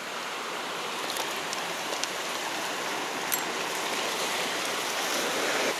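Steady hiss of sea surf washing against the shore, even and unbroken, with a few faint ticks.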